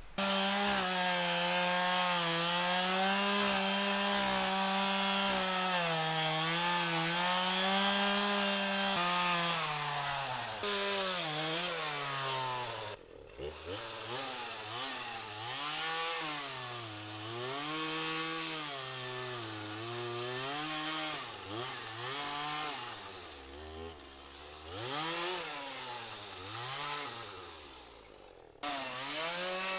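Two-stroke chainsaw running near full throttle, then cutting into a branch, its engine pitch repeatedly sagging and climbing as the chain loads up and frees in the wood. The sound briefly drops away near the middle.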